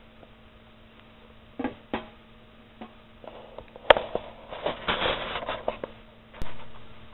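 A faint steady hum, then handling noise close to the camera: a few knocks, a sharp click, about a second of rattling clatter, and another click near the end.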